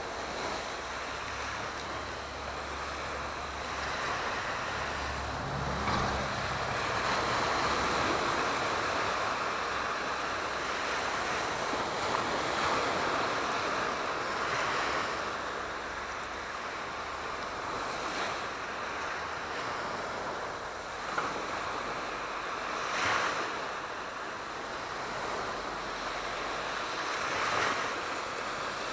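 Aegean Sea waves washing in, the surf swelling and easing every few seconds, with a low rumble under it for the first several seconds.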